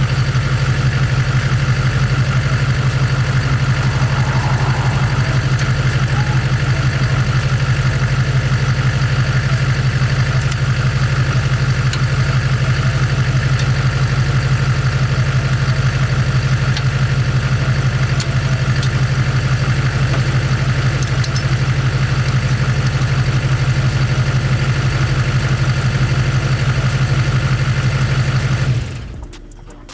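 An engine or motor running steadily at idle, with a fast, even pulse low in pitch; it cuts off abruptly about a second before the end.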